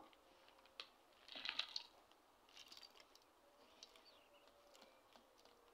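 Near silence, with a few faint light clicks and a brief rustle as nut pieces are tipped from a plastic basket into a blender jar; the blender is not running.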